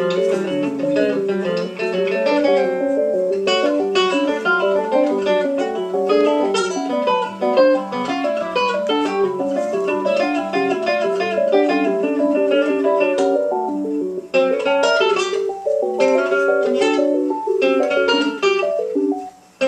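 Guitar music: quick plucked notes in busy running melodic lines, breaking off for a moment about fourteen seconds in.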